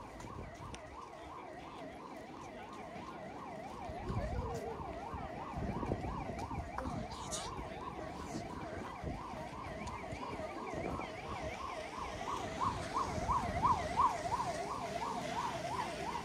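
An electronic warbling siren, its pitch sweeping rapidly up and down several times a second, growing louder after about twelve seconds as it draws nearer.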